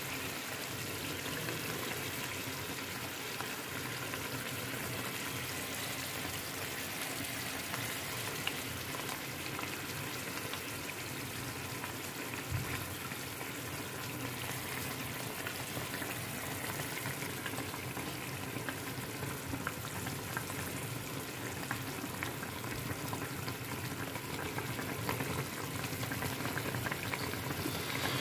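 Water boiling in a kadai beneath a perforated steamer plate, a steady hiss with faint bubbling, as momos are set in to steam.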